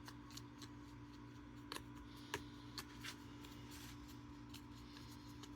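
Faint, scratchy strokes of a dry hair brush over the feathers of a mounted duck, with a few light clicks between about two and three seconds in, over a steady low hum.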